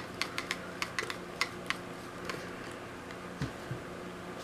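Light irregular clicks and taps of a screwdriver and small parts being handled on a laptop's plastic case while the keyboard screws are worked out, thickest in the first second and a half, with a dull knock about three and a half seconds in, over a faint steady hum.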